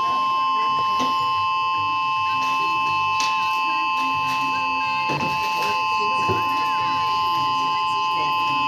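Outdoor warning siren sounding a steady tone that holds pitch without rising or falling, with two close pitches sounding together and a higher tone above them. Voices talk faintly underneath.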